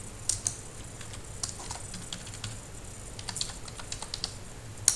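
Computer keyboard keys clicking as a word is typed, in irregular keystrokes with small quick runs and the loudest cluster near the end.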